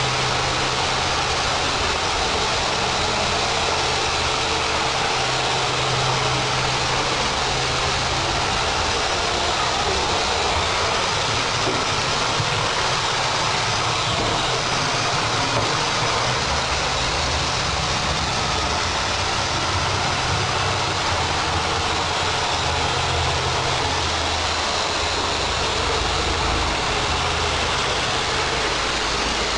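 Roomba robot vacuum cleaner running: the steady whirr of its suction motor and brushes, with a low hum that shifts in pitch now and then as it moves about.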